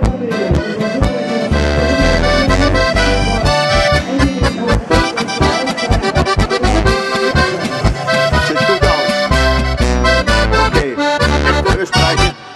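Background music: a lively instrumental folk tune with a steady bass beat, cutting off abruptly near the end.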